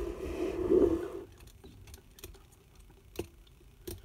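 A pen scratching on paper for about the first second, then five or six light, sharp ticks at uneven intervals as the pen is handled.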